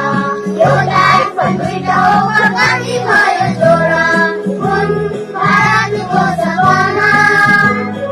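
A song: singing voices over an instrumental accompaniment with steady, repeating low notes.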